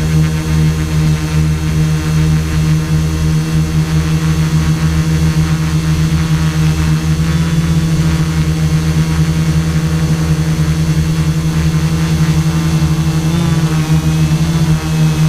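Multirotor drone's electric motors and propellers running with a steady, fluttering hum, picked up by the camera on board the drone. The pitch wavers briefly about thirteen seconds in.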